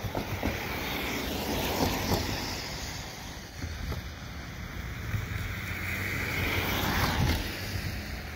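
Wind rushing and buffeting the microphone, over a low rumble of distant vehicles that grows louder in the second half.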